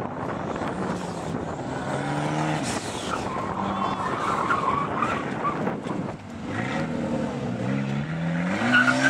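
Turbocharged Volvo 240 wagon engine revving hard, its pitch climbing with throttle, dropping off briefly about six seconds in, then climbing again. Tyres squeal as the car is pushed through tight turns.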